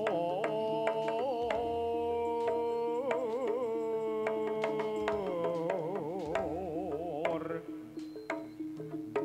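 Jaranan gamelan music: a high melody held in long notes with a wavering pitch, over steady lower metallophone tones and sharp drum strokes, with deep gong notes booming twice.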